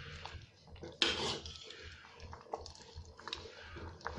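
Metal spoon stirring thick kheer in a metal pot, with soft scrapes and clicks against the pot. The clearest scrape comes about a second in.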